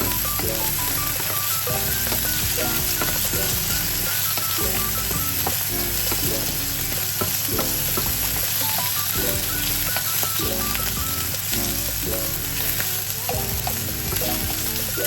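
Food sizzling steadily as it fries in a pan, with background music playing a light melody of short notes.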